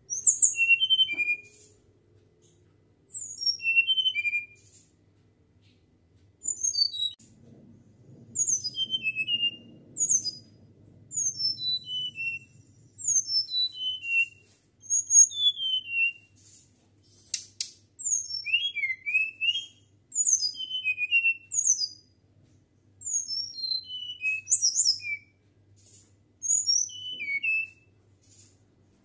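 Caged flycatcher (sikatan) singing: short phrases of high, clear, flute-like whistled notes, each falling in pitch, repeated every second or two.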